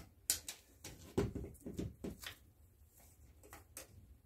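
Light taps and clicks of a steel tape measure's blade and a hand against a wall as the tape is held in place, with one duller thump about a second in and a few fainter clicks near the end.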